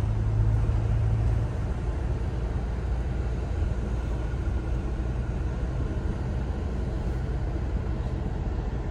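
Car driving along an asphalt road, heard from inside the cabin: a steady low rumble of engine and tyre noise, with a hum that is louder for the first second and a half.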